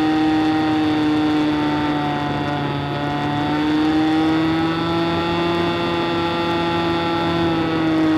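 RC model airplane's engine and propeller heard from the onboard camera: a steady pitched drone that rises slightly in pitch a few seconds in and then holds.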